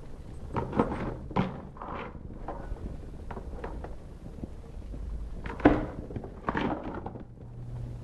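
Cardboard box and packaging being handled and opened: scattered knocks, scrapes and rustles, in a cluster about half a second in and another about five and a half seconds in.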